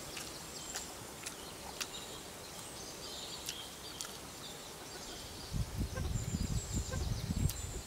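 Quiet rural ambience with scattered faint bird chirps and small, light clicks. Near the end, a couple of seconds of irregular low rumbling bursts.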